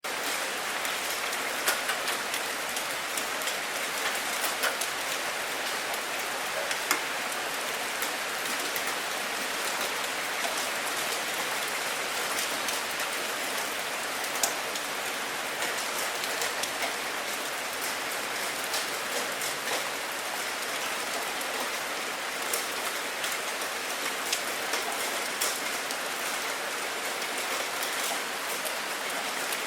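Steady rain falling and pattering on a surface, with a dense hiss and many distinct drop ticks scattered through it.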